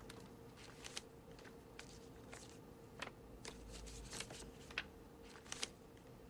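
Faint, scattered clicks and light rustling at an uneven pace, over a steady low hum.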